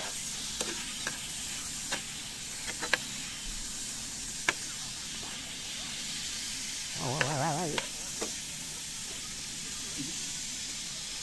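A sausage frying: a steady sizzling hiss with occasional sharp pops of spitting fat.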